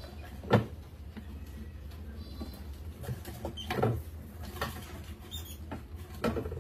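Hinged wooden tipping flap of a rat trap knocking as it tips and rats drop into the glass tank below: three sharp knocks about three seconds apart, the first the loudest. Between them come smaller clicks and scrabbling from the crowd of rats, with a couple of brief high squeaks.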